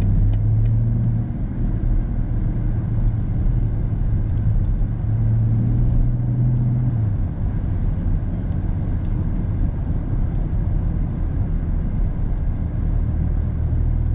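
In-cabin sound of a BMW X5 30d's three-litre inline-six turbodiesel pulling under acceleration over road and tyre noise. Its low drone swells near the start and again about five seconds in, easing after about seven seconds.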